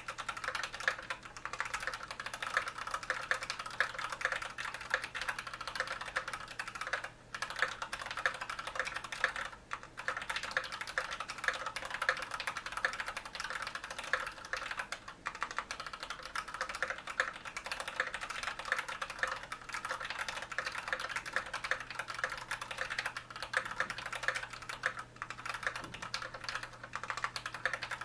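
Steady, fast typing on a bottom-mount KBD67 Mark 1 mechanical keyboard with a stainless steel plate, broken-in unlubed Cherry MX Red linear switches and POM keycaps. The clacking runs on with a few brief pauses.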